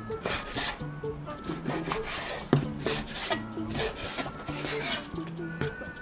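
Kitchen knife slicing raw squid on a wooden cutting board: repeated chopping strokes, each a short knock of the blade onto the board, about two a second, the loudest about two and a half seconds in. Background music plays underneath.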